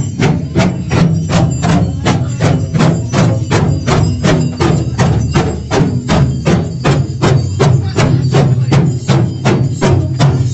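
Barrel drums beaten with sticks in a steady, even beat, roughly three and a half strokes a second.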